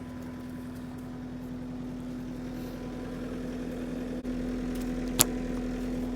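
Kubota SSV65 skid steer's diesel engine running with a steady hum, with one sharp click about five seconds in.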